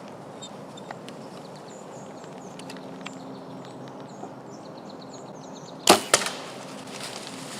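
A bow shot about six seconds in: two sharp cracks about a quarter second apart, the first the louder.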